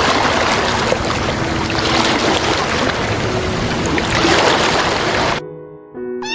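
A loud, steady rushing noise, like outdoor wind or running water, over soft background music; the rushing cuts off suddenly a little over five seconds in, leaving the music alone.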